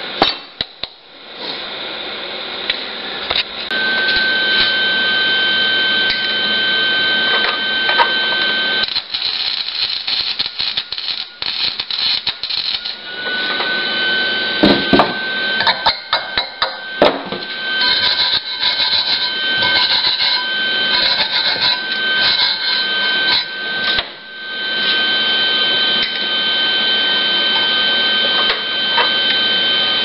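Flux-core wire-feed welding on a small steel belt buckle held in a bench vise: the arc crackles in runs of several seconds with short breaks between them, tacking the pieces together. A steady high whine sounds through most of the runs.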